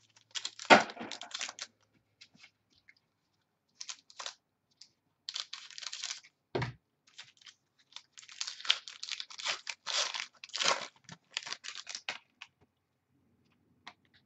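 Packaging being cut, torn and crinkled as a sealed box of football trading cards is opened, in irregular rustling bursts with a dense run of tearing in the second half. A sharp knock comes about a second in and a dull thud near the middle.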